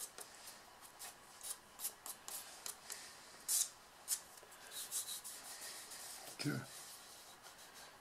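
Soft pastel stroked and rubbed onto paper: short, irregular, scratchy strokes several times a second, one stroke louder about three and a half seconds in.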